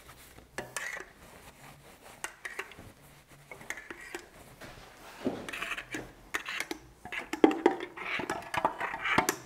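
Hand oiling of a milling machine's table slides: an oil can pumped and set down on the metal, and a rag rubbing off old oil, making scattered clicks, clinks and scuffs that come thicker and louder in the second half.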